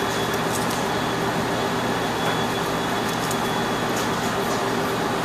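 Steady hum and hiss of kitchen ventilation, with a few faint light scrapes of a small knife trimming the green skin from a globe artichoke's stem.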